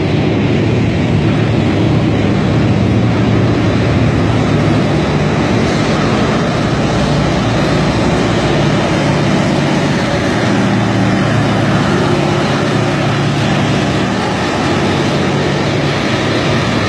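A tank's engine running steadily, a loud low drone with a hum, easing slightly about fourteen seconds in.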